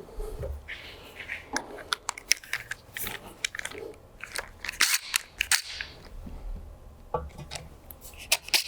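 Irregular sharp clicks and light knocks of tools and metal hardware being handled, with no drill running.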